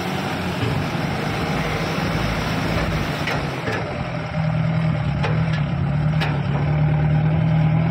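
A loaded vehicle's engine labouring as it drives through deep floodwater. The engine note gets louder and steadier from about halfway. A few sharp knocks come from the vehicle near the middle.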